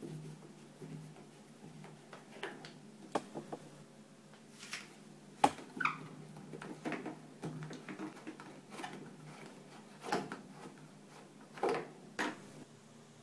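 Handling noises of water supply hoses being disconnected from a washing machine's plastic inlet valve fittings: scattered clicks, taps and rustles, with one sharp click about five and a half seconds in, over a low steady hum.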